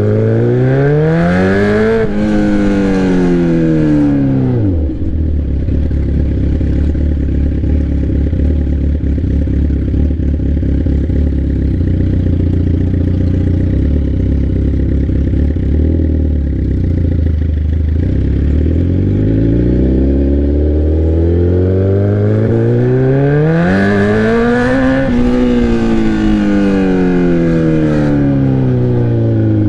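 Sport bike's straight-piped exhaust, very loud. The engine revs up and winds back down within the first few seconds, then settles to a low, steady idle for about thirteen seconds. It revs up again for several seconds and eases off near the end.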